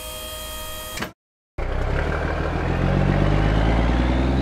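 Cartoon dump truck sound effects: a steady whirring tone as the tipper bed settles, cutting off about a second in, then after a short gap the truck's engine starts up and rises in pitch as it pulls away, with a thin whine gliding upward above it.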